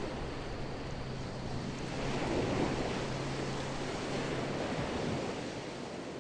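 Steady rushing outdoor noise, with a low steady hum for the first few seconds.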